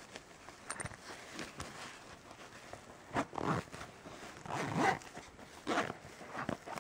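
Zipper on a soft fabric camera case being pulled in several short strokes, most of them in the second half, with handling rustle of the case between them.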